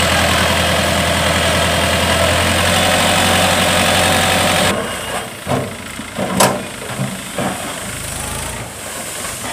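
Trakstar 545 tractor's diesel engine running steadily while the loaded trolley is tipped. About halfway through it gives way to a quieter mix with several sharp thumps, the sound of soil tumbling out of the raised trailer bed.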